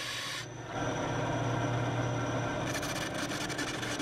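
Benchtop band saw running, its blade rasping through a small wooden pattern piece over a steady motor hum. The hum and cutting grow louder about half a second in, with crackly bursts of cutting near the end.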